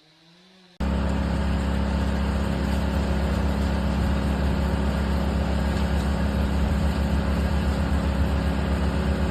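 An engine running steadily at a constant speed, a low, even drone that cuts in abruptly about a second in.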